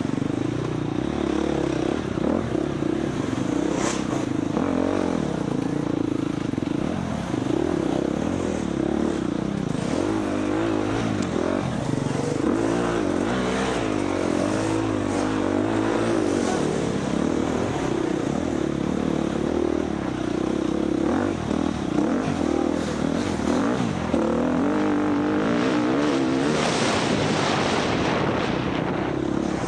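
Four-stroke dirt bike engine running continuously under racing load off-road, its pitch wavering up and down as the throttle opens and closes.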